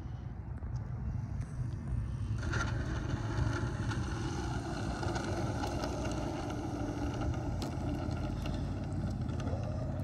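Seagull Sport Cruiser RC model airplane's engine running in flight, its pitch sliding down slowly a few seconds in.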